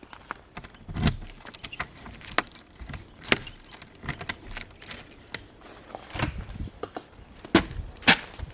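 Keys jangling and a caravan door being unlocked and opened: irregular metallic clicks and rattles with several louder knocks, the loudest about a second in, around three seconds and near the end.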